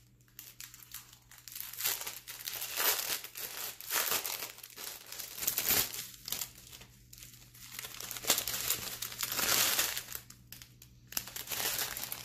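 Clear plastic bags of diamond-painting drills crinkling as they are handled and flipped over, in irregular bursts with short pauses.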